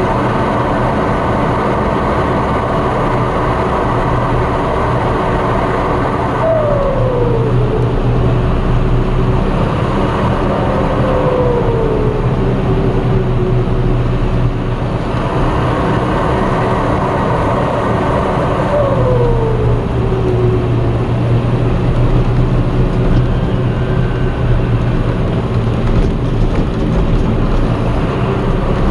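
John Deere 6230 Premium tractor's turbodiesel engine running under way, heard from inside the cab, with its variable-geometry turbo control switched off. A tone falls in pitch three times, about seven, twelve and twenty seconds in.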